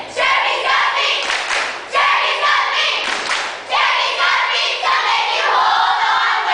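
A team of girls chanting a cheer together in loud shouted phrases with short breaks between them, with some clapping.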